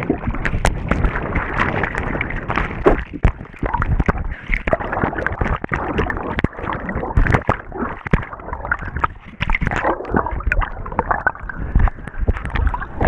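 Water splashing and sloshing around a kayak on a whitewater river, with many irregular splashes and knocks.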